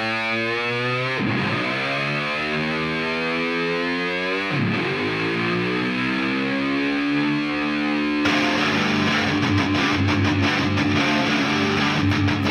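Heavy rock background music: distorted electric guitar holding notes under a sweeping effect. The full band with drums comes in about eight seconds in.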